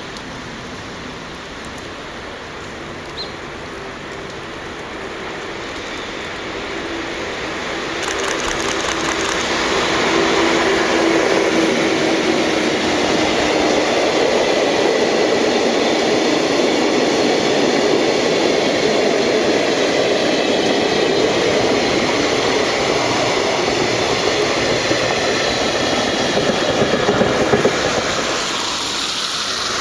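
Freight train rolling past at close range, its wagons rumbling and clattering over the rails. It builds up over the first ten seconds or so, stays loud, and drops off near the end.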